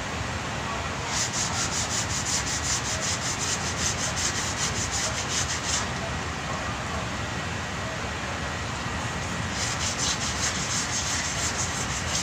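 Sanding block with sandpaper rubbed quickly back and forth by hand over body filler on a pickup's front fender, about four to five strokes a second. The strokes stop for a few seconds in the middle, then start again.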